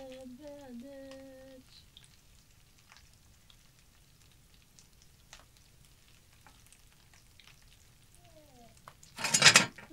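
Battered fish frying in a pan of hot oil: faint scattered crackling, then a loud half-second burst of sizzling near the end.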